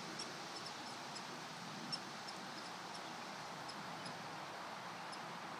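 Faint, short high-pitched chirps from a small animal, scattered irregularly a few times a second over a steady hiss, with one sharper click about two seconds in.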